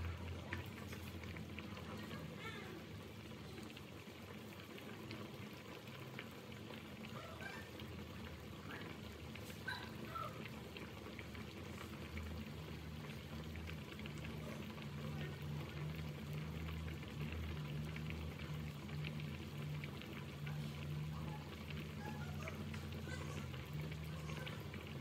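Water at a rolling boil in a pot, bubbling steadily with scattered small pops.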